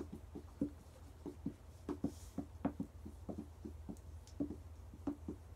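Dry-erase markers writing on whiteboards: a quick, irregular run of short strokes.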